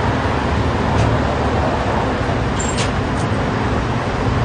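City street traffic noise: a steady low rumble of engines and passing vehicles, with a brief high squeak a little more than halfway through.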